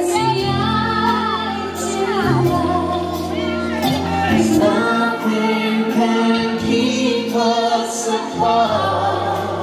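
Slow waltz music with a singing voice, played over the hall's loudspeakers.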